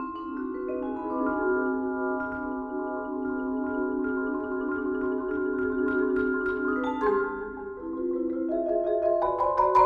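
Vibraphone and two marimbas played with yarn mallets, sounding long held chords whose notes overlap and ring on. About seven seconds in a new chord comes in, and near the end a single sharp struck note is the loudest moment.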